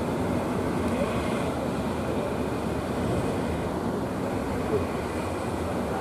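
Several motorised wooden fishing boats running their engines steadily through breaking waves, with a constant rush of surf.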